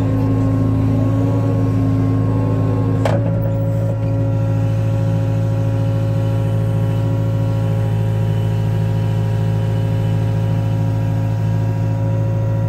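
Excavator's diesel engine running steadily, heard from the operator's seat, as the machine lowers concrete blocks hung on chains from its bucket. A single sharp knock sounds about three seconds in.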